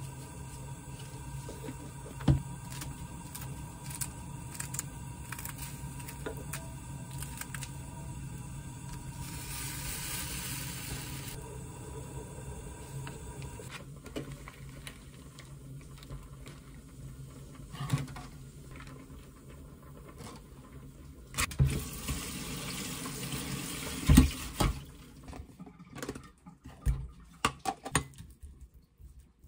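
Kitchen work sounds: a steady hum with small clinks for about the first half, then water running from a kitchen tap, broken by several sharp knocks of a metal colander and dishes in the second half.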